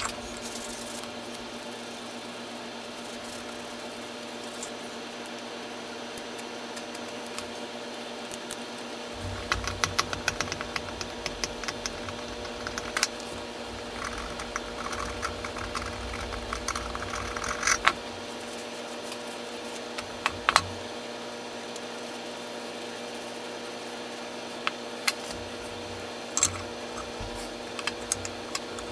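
Small metal parts of a wooden-bodied transitional hand plane clicking and rattling as they are handled and fitted on a workbench. There is a flurry of light clicks in the middle and a few single sharp knocks later, over a steady low hum.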